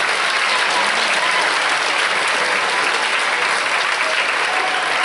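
Large audience applauding steadily, a dense clapping that swells up just before and holds at full strength.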